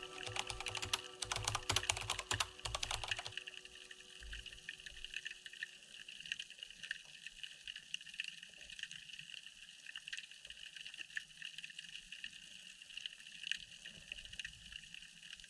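Underwater sound picked up through a GoPro housing: a dense rattle of sharp clicks and knocks for about three seconds as juvenile square-tailed mullets strike and nibble chicken bait on the camera's frame. Scattered faint crackling clicks follow over a steady underwater hiss. Background music fades out in the first seconds.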